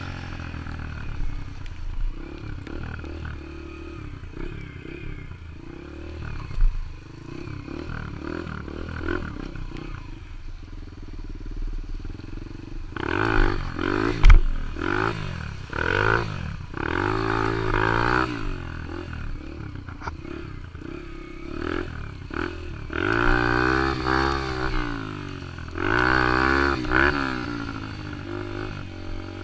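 Yamaha TT-R125 dirt bike's single-cylinder four-stroke engine running while ridden, the revs rising and falling repeatedly with louder spells of throttle in the second half. A single sharp knock about halfway through.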